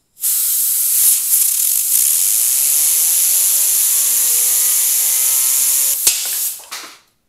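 Compressed air from an air-compressor blow gun hissing loudly against a homemade fidget spinner, with the spinner's bearings whining higher and higher as it spins up. The air cuts off with a click about six seconds in.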